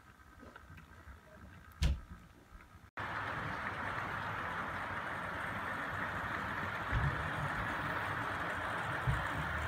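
Model freight train running on the layout's track: a steady rolling rumble of wheels on rail, with two low thumps near the end. Before that it is quieter, with one sharp click, until an abrupt cut to the louder running sound.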